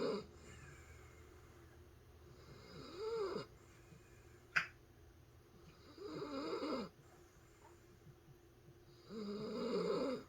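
Senior dachshund snoring in her sleep, with a snore about every three seconds and quieter breathing between. A single sharp click comes about halfway through.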